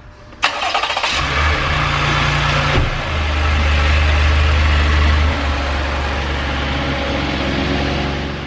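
Car engine starting: a short crank, then it catches and runs at a raised fast idle for about two seconds before settling to a steady idle, fading out near the end.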